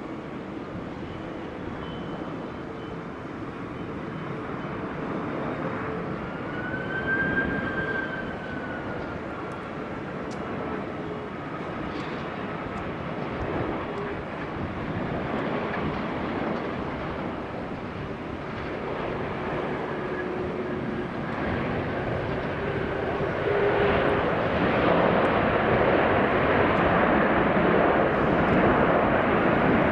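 Airbus A330-300 airliner on final approach: steady jet engine noise with a faint whine that grows louder as the plane nears, loudest over the last six seconds or so.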